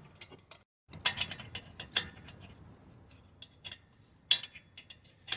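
Irregular metallic clicks and clinks of a wrench working loose the half-inch nuts on the joint between the turbo outlet and the catalytic converter, with the engine off.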